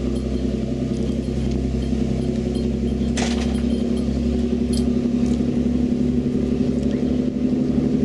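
Motorboat engine running steadily at speed, with the rush of water and wind over it. A brief sharp knock about three seconds in.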